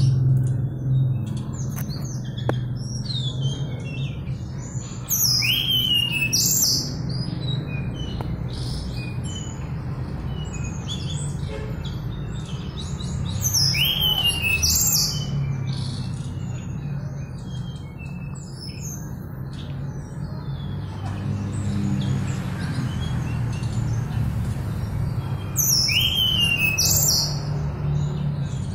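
Mangrove blue flycatcher singing: bursts of quick, high whistles with sharp falling slurs and quieter twittering between. The loudest phrases come about five, fourteen and twenty-six seconds in.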